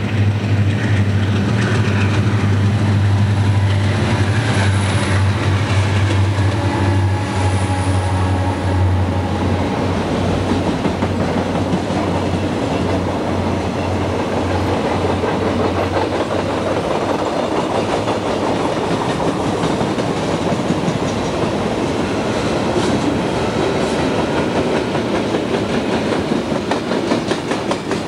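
Freight train's lead diesel locomotives (EMD SD40-2s and a GE B30-7) passing close with a deep, steady engine drone that fades after about nine seconds. The freight cars then roll by with steady wheel-on-rail noise and clicks from the rail joints.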